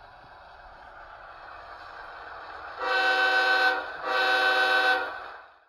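Sound from the Tsunami2 DCC sound decoder in an HO-scale Athearn GE ES44AC Union Pacific diesel locomotive model. The diesel engine sound runs and slowly grows louder, and then two horn blasts of about a second each sound from about three seconds in. The sound fades out just before the end.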